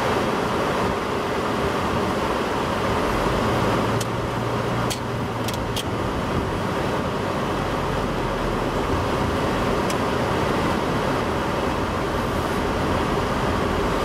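Car driving along a town street, heard from inside the cabin: steady tyre and road noise with the engine running underneath. A few light clicks come about four to six seconds in and again near ten seconds.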